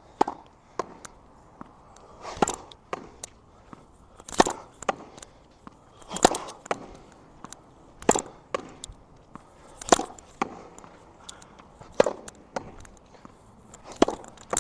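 Tennis ball rallied against a practice wall: a firm racket stroke about every two seconds, seven in all, with lighter knocks in between as the ball rebounds off the wall and bounces on the wet court.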